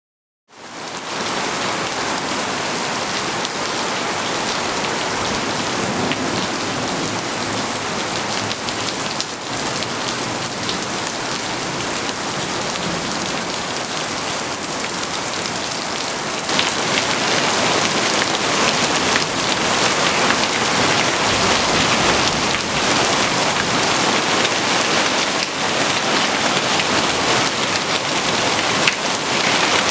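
Heavy rain pouring down in a storm, a dense steady hiss that turns louder about halfway through.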